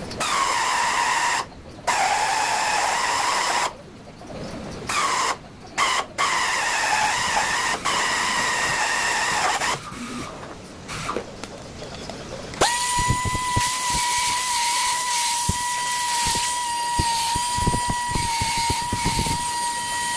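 A handheld power tool working on car body metal: it runs in a string of short bursts with a whine that dips in pitch at the start of each, then, about two-thirds of the way in, runs steadily with a high, even whine and scattered knocks beneath it.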